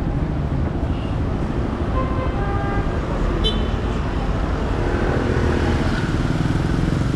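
Road traffic on a city street: a steady rumble of passing vehicles, with a brief high-pitched tone about halfway through.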